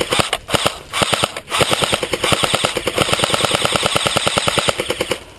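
Airsoft gun firing rapid full-auto bursts: a couple of short bursts, then one long burst of about three seconds that stops shortly before the end.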